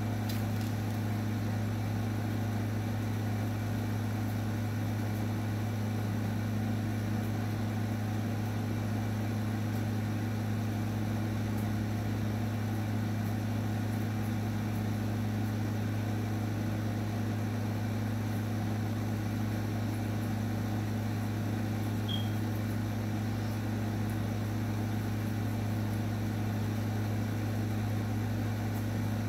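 Electric dog grooming clippers running with a steady, unchanging buzz.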